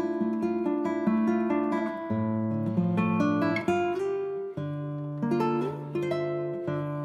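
Background music: acoustic guitar playing a picked and strummed tune.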